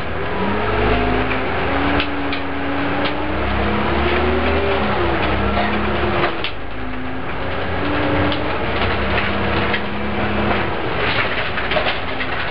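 Leyland Olympian double-decker bus heard from inside near the front: the diesel engine and drivetrain under way, with a whine that rises in pitch and drops back several times as the bus accelerates, over a low rumble and light rattles.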